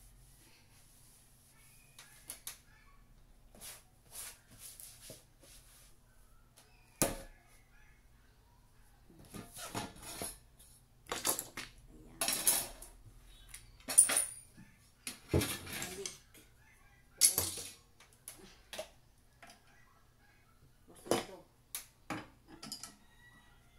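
Ornaments handled while being dusted with a cloth on wooden cabinet shelves: scattered knocks and clinks as they are picked up and set down, mixed with short bursts of cloth wiping and scraping, busiest in the middle stretch.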